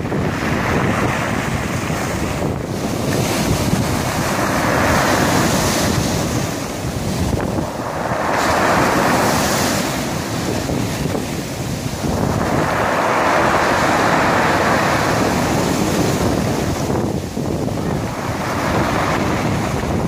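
Sea waves breaking and washing onto a pebble beach, the rush swelling and easing every few seconds, with wind buffeting the microphone.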